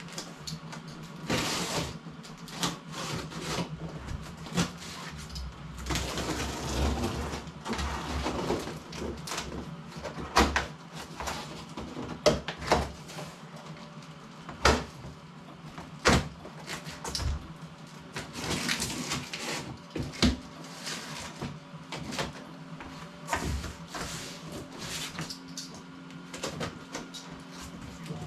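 Cardboard box of a flat-pack workbench kit being unpacked: rustling and scraping of cardboard and packing material, with scattered sharp knocks as the parts are handled, over a steady low hum.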